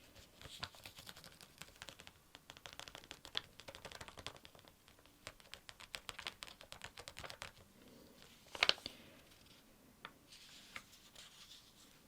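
Close-miked sticker handling: a sticker being peeled from its backing and pressed and smoothed onto a sticker-book page with the fingers, a run of fine crackles, ticks and paper scratching, with one sharper click about eight and a half seconds in.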